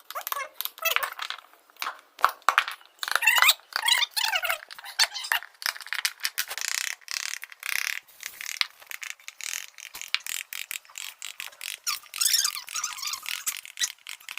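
Hand tool scraping across wood in many quick, irregular strokes, some of them squeaking.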